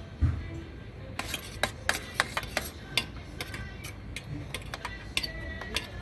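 Cutlery clinking and scraping against plates: a dull thump right at the start, then a run of sharp clicks and clinks from about a second in, one of them ringing briefly near the end.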